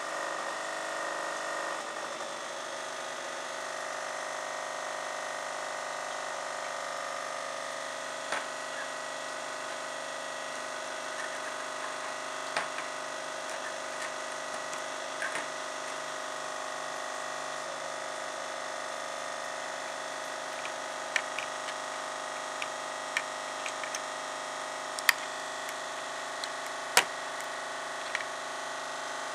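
Sharp clicks and taps of small circuit boards and components being handled and pressed together on a wooden table, more frequent in the second half, over a steady hum with several held tones.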